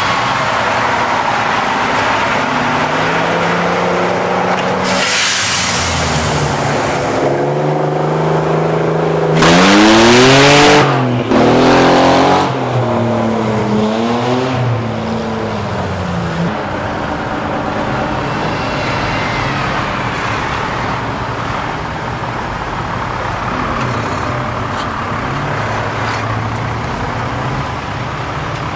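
Off-road vehicle engines running on a muddy track: the Tatra 813 8x8 truck's air-cooled V12 diesel as it drives past, with a brief hiss about five seconds in. Around ten seconds in, an engine revs hard twice, rising in pitch; this is the loudest part. The engines then carry on at lower revs.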